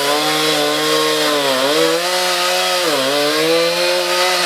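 Power saw running at high speed, its pitch sagging briefly twice as it bites into material under load.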